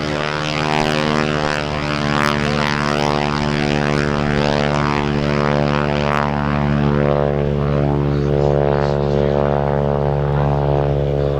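Stearman biplane's radial engine and propeller running steadily, holding one pitch throughout.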